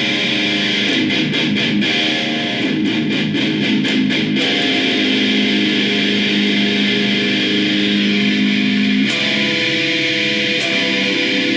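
Tario seven-string electric guitar played through a Roland Micro Cube practice amp: a run of quickly picked notes, then a chord left ringing for several seconds, then more picking near the end.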